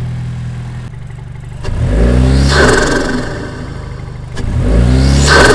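Lexus IS's turbocharged four-cylinder (8AR-FTS) idling, then revved twice, heard with the microphone right at its HPS short-ram intake and the stock turbo muffler still fitted. Each rev climbs in pitch and peaks with a loud airy intake and turbo rush.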